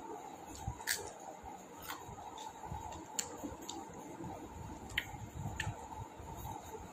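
A person eating roti and curry close to the microphone: chewing, with about five sharp wet mouth clicks at irregular moments, over a faint steady hum.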